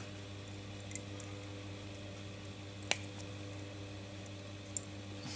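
Steady low electrical hum with a few faint ticks and one sharp click about three seconds in, small handling sounds at a jeweller's bench.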